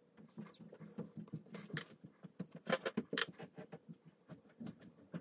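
Eyeshadow brush stroked rapidly over the eyelid: faint, quick scratchy brushing with a few sharper clicks.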